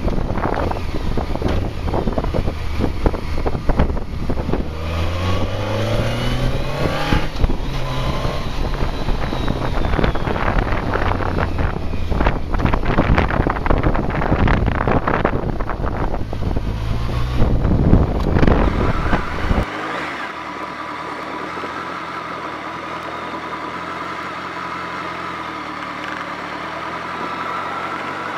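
BMW K1200R Sport's inline-four engine riding and accelerating, its pitch rising and dropping with gear changes, under heavy wind buffeting on the fairing-mounted camera's microphone. About twenty seconds in, the buffeting cuts off abruptly and the engine is heard running steadily and more clearly at low speed.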